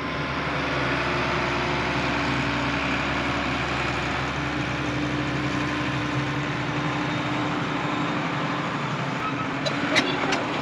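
Åkerman H10 tracked excavator's diesel engine running steadily while the hydraulic boom carrying a breaker hammer is moved. Near the end a few sharp metallic clanks come in as the tracks start moving.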